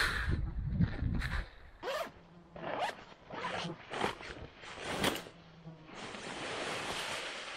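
Backpack zippers being pulled open in several quick rasping strokes, after bumping and handling noise at the start. Near the end, a steady rushing hiss as the opened bag is tipped out over a ring of stones.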